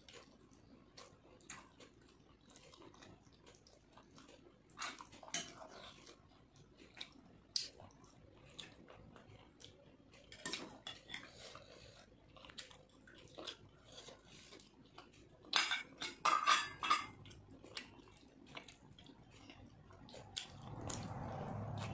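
Close-up eating and serving sounds: a metal spoon clinking and scraping against a glass bowl of chicken curry and a plate, mixed with wet chewing and finger handling of rice and chicken. Scattered short clicks and clinks, the loudest cluster about sixteen seconds in, and a low rumble near the end.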